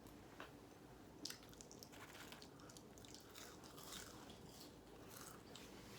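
Faint crunching and chewing as someone bites into crispy fried chicken, a run of short crackles of the breaded crust.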